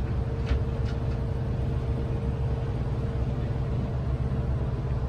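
Steady low drone of a trawler yacht's diesel engine running underway, heard on board, with a steady hum above it and two faint clicks about half a second and a second in.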